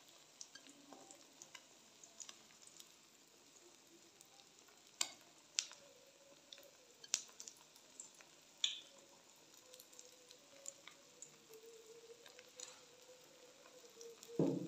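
Egg omelette with chopped vegetables frying in oil in a metal frying pan, a quiet sizzle with scattered crackling pops. A louder thump right at the end.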